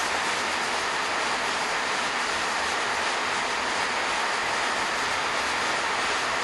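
Steady, even rushing noise of a diesel multiple unit running slowly in on the curve, with no distinct engine note or wheel clicks standing out.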